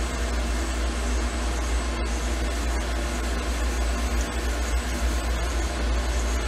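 Steady whirring machine noise with a deep low rumble and an even hiss, unbroken and without any rhythm, from the powered-up CNC mill.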